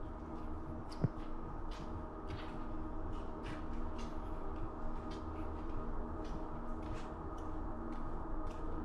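Footsteps on a hard corridor floor, a little under two steps a second, over a steady low drone.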